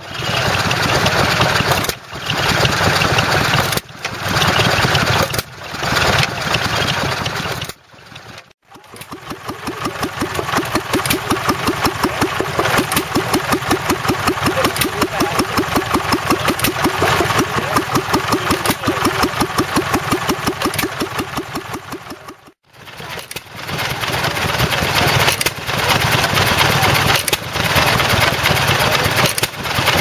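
Vintage stationary engines running, one after another in short cut-together clips. The longest stretch, in the middle, is a steady, fast, even exhaust beat from an engine driving a grinding mill.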